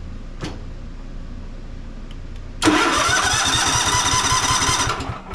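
Electric starter cranking a Cub Cadet riding mower's 679cc fuel-injected engine for about two seconds without it catching, the compression strokes coming as fast, even pulses before it stops abruptly. The engine isn't firing because there is no spark.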